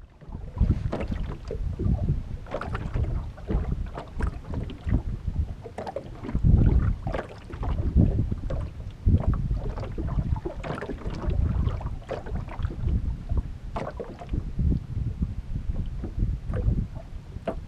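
Wind buffeting the microphone and small waves lapping and slapping against a fishing boat's hull, in an uneven rumble broken by frequent short knocks.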